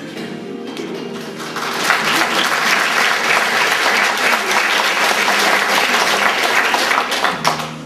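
Audience applause, swelling about a second and a half in and dying away near the end, over the fading tail of the musical accompaniment.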